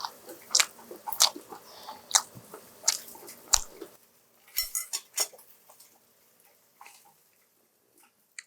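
Close-miked chewing of a crispy fried dumpling: sharp crunches every half second or so, a brief denser crackle about five seconds in, then only a few faint clicks.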